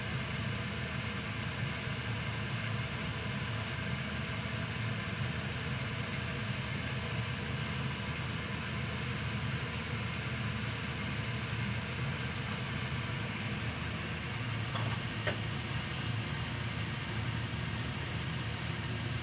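Tocino boiling in its marinade in a frying pan on a gas stove: a steady low rumble and hiss, with a couple of faint ticks about fifteen seconds in.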